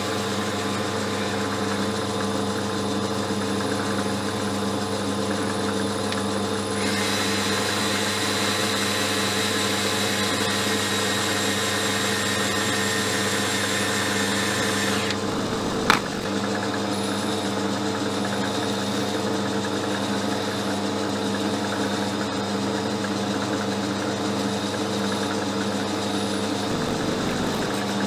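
Small metal lathe running steadily with a constant motor-and-gear hum while boring out a stainless steel cup. The sound turns brighter and hissier for several seconds in the middle, then there is a single sharp click.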